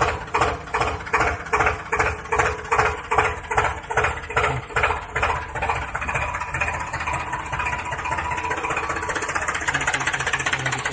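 Tractor engine sound, running with a slow, even knock of about two and a half beats a second for the first half, then settling into a faster, steadier run.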